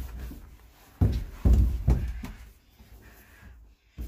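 Dull thumps and scuffs of a child climbing up a plastic slide, a loud cluster starting about a second in and fading out by halfway.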